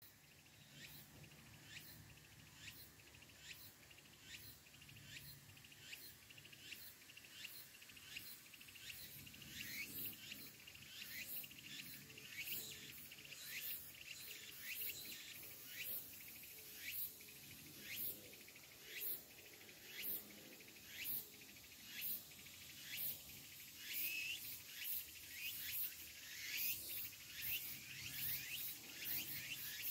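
Tsukutsukuboshi cicada (Meimuna opalifera) singing: a high, pulsing song at about one beat a second that grows gradually louder.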